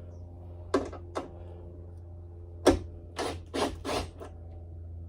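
Socket ratchet tightening the strut's top-mount bolts: about half a dozen short ratcheting strokes at uneven intervals, over a steady low hum.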